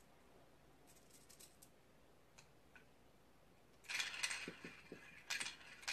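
Hard toy pieces clattering and rattling, a dense run of sharp clicks starting suddenly about four seconds in, after a few faint ticks.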